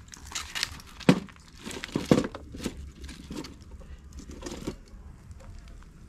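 Sticks and pieces of firewood being handled and shoved under a wood cooking fire: irregular crackling and rustling, with two louder knocks about one and two seconds in.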